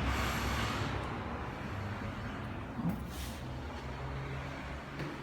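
Steady road traffic noise from a nearby highway, heavy vehicles included, with a low rumble. The higher part of the noise drops away about a second in, and a short click and a brief hiss come near three seconds in.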